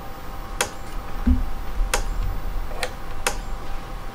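Power Wizard PW18000 electric fence charger pulsing: a sharp click about every 1.3 seconds, each click one high-voltage pulse. A soft thump comes about a second in.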